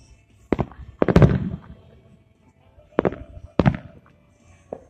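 Aerial fireworks shells bursting: five booms. The loudest comes about a second in and trails off in a rolling rumble, two more follow close together around three seconds, and a smaller one comes near the end.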